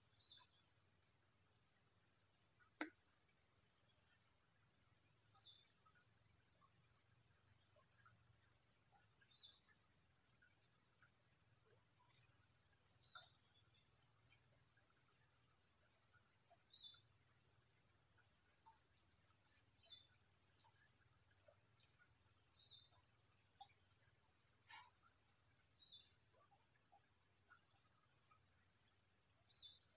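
Steady high-pitched insect chorus without a break, with short faint chirps every three to four seconds and a soft click about three seconds in.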